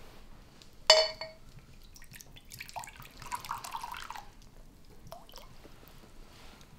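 A glass clinks sharply once with a short ring, then amber liquor is poured from a glass bottle into a tumbler for about a second and a half.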